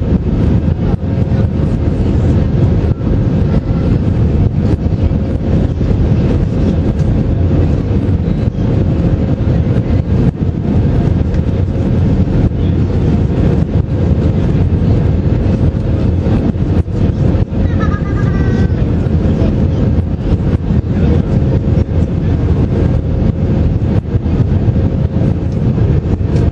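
Airbus A319's CFM56 jet engines and rushing airflow heard inside the cabin in flight: a steady, loud drone with a constant mid-pitched hum running through it.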